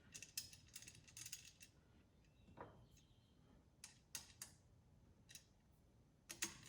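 Faint, scattered clicks and taps of small metal parts being handled as an M5 screw is fitted into the laser engraver's frame.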